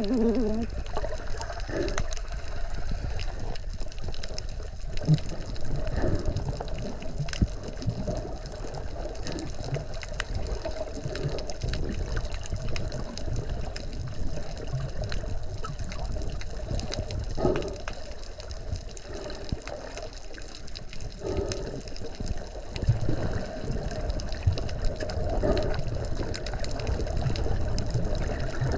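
Water sloshing and gurgling close to the microphone, over a steady low rumble, with a few scattered knocks.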